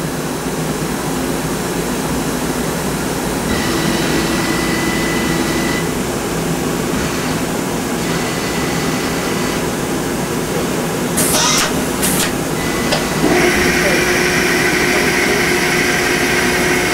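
A 1983 Hardinge CHNC4-16C CNC chucker lathe running through its demonstration cycle: a steady mechanical hum with faint whining tones and a few sharp clicks a little past the middle. Then a louder steady whine sets in about three-quarters of the way through.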